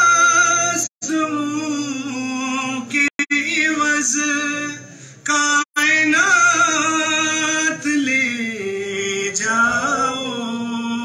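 A man singing an Urdu devotional manqabat unaccompanied, in long held notes that wind up and down in pitch. The sound drops out briefly three times.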